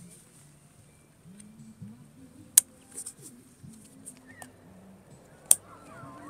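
Two sharp clicks, about three seconds apart, are the loudest sounds, over faint low voice-like sounds and a steady high hiss.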